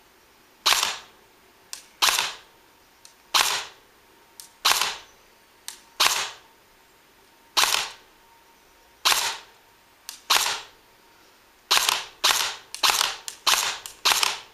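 King Arms M16-style DMR airsoft electric rifle (AEG) firing single shots, each a sharp crack with a short fading tail. About one shot every second and a half at first, then a quicker string of shots in the last three seconds.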